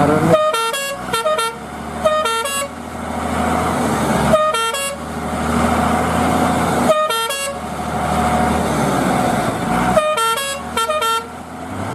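Truck sound effect: an engine running steadily, over which a musical horn sounds short runs of notes stepping in pitch, in about five bursts.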